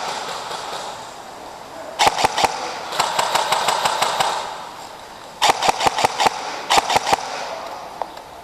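Airsoft electric rifle firing three short rapid bursts, each about half a second long.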